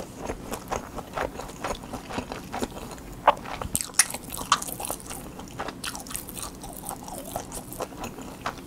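Close-miked chewing of a mouthful of Spam kimchi fried rice: a steady run of moist clicks and crunches, with a few louder ones about three to four seconds in.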